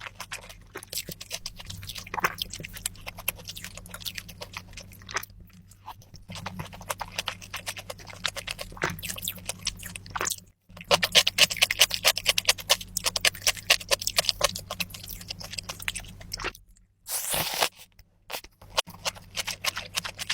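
Close-miked mouth sounds of someone eating: crisp crunching and wet chewing in quick, uneven bites. The crunching is densest and loudest about halfway through, with a couple of brief pauses.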